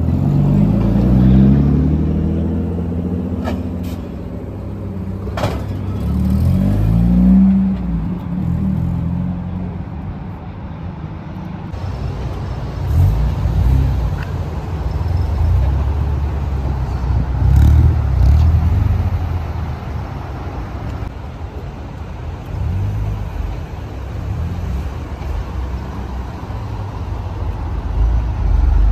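Car engines running at low revs with a steady exhaust rumble, rising and falling in pitch twice in the first several seconds as engines are revved or pull past, with a couple of sharp clicks.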